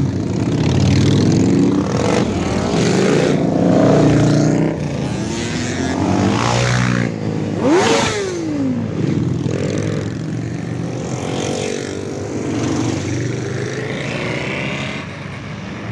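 A group of motorcycles riding past one after another, engines running and revving. About eight seconds in, one bike passes close and revs, its pitch rising and then dropping as it goes by.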